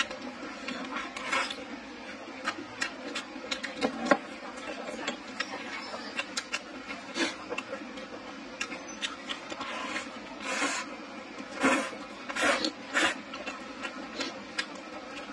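Close-up eating sounds: chewing and slurping a mouthful of rice and stir-fried pork liver, with many small clicks. A few louder wet smacks come in the second half.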